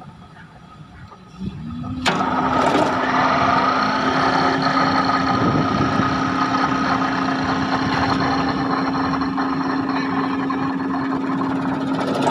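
Excavator-mounted hydraulic vibratory pile hammer being test-run in the air. After a quieter lull there is a clunk about two seconds in, and the machine comes up to a loud, steady hum with a whine over a rattling noise.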